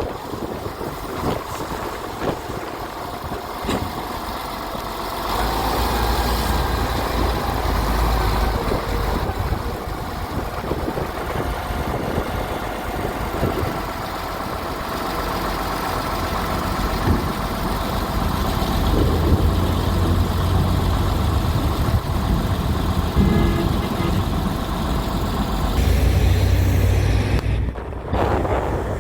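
Heavy diesel vehicle engine running steadily, getting louder and deeper in several stretches as it works under load.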